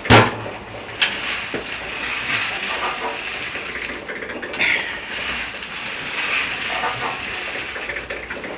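Homemade peanut roaster made from a concrete mixer, running with nuts tumbling in its turning barrel and the burner lit: a steady rushing noise. A loud knock right at the start and a sharp click about a second later as the lid is knocked against the out-of-round barrel while being fitted.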